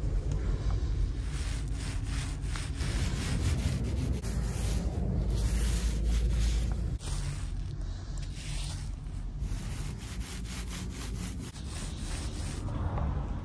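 Paint roller rubbing back and forth over rough concrete, a scraping swish with each stroke.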